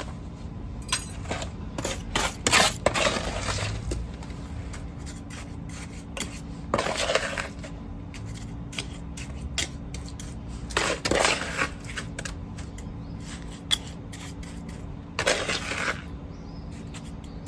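A hand tool scraping leftover wet cement out of a container, in scrapes roughly every four seconds with light clinks between.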